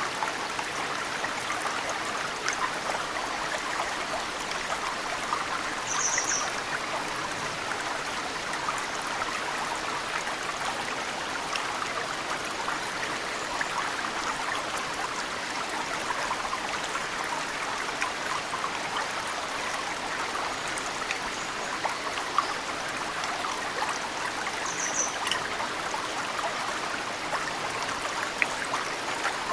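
A mountain stream flowing steadily, with snowmelt drips falling into it as scattered faint ticks. A bird gives a short high chirp twice, about six seconds in and again near the end.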